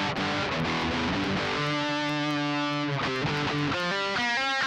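Electric guitar played with distortion through a Jam Buddy effects unit: a quick run of picked notes, then a held note and a short melodic phrase ending in notes with vibrato.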